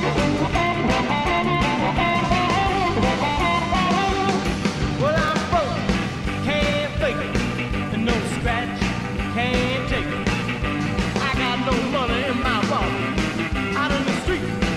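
Instrumental break of a blues-rock song: a lead line with bending notes over a steady drum beat and bass.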